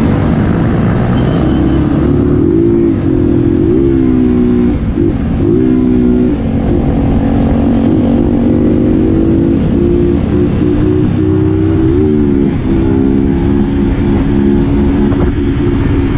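Motorcycle engine running at a steady cruise, its note wavering briefly a few times with the throttle, over a low wind rumble on the microphone while riding.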